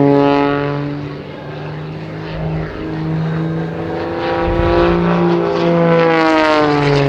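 Wolf Pitts Pro aerobatic biplane's Lycoming 540 six-cylinder engine and propeller running hard through a manoeuvre. The engine note dips lower and quieter, climbs back up, then falls in pitch near the end as the plane passes.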